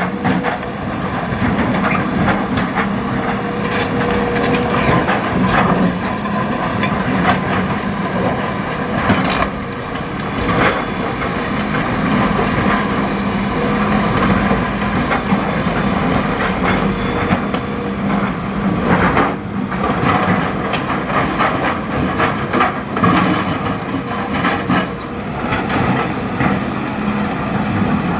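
Hitachi ZX200 excavator's diesel engine running steadily as it scoops river stones and loads them into a dump truck, the rocks clattering and knocking irregularly.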